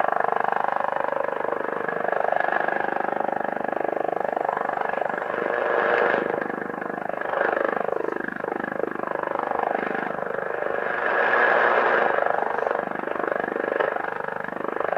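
Shortwave receiver (Kenwood R-1000) playing an unidentified pulse-type signal about 22 kHz wide: a dense, noisy signal full of overlapping rising and falling pitch sweeps. Its loudness swells and dips every few seconds. The owner has ruled out interference from his own house.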